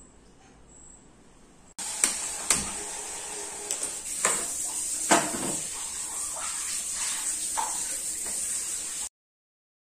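Gas stove burner hissing steadily, starting suddenly about two seconds in, with several sharp metal clicks and clanks as an aluminium kadai is set down on the burner's pan support. The sound cuts off abruptly near the end.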